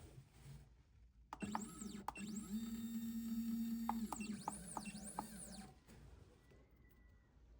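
Entry-level CNC mill's stepper motors whining through rapid moves, the pitch rising and falling with each move over a steady low hum, with a few sharp clicks, for about four seconds starting just over a second in.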